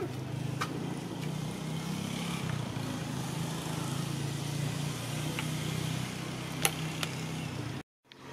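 A motor engine running steadily in the background, a low wavering hum, with a sharp click about six and a half seconds in. The sound cuts out briefly near the end.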